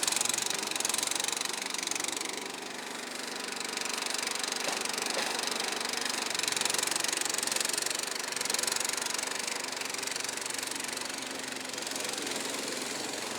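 Kohler engine of a Struck Magnatrac Junior mini bulldozer running steadily, its level swelling and easing off a few times as the machine works.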